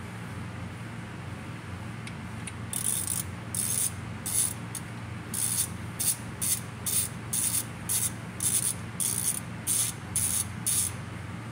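Hand ratchet wrench clicking in short strokes, about two a second, working the bolts on an automatic transmission's valve body. A steady low hum runs underneath.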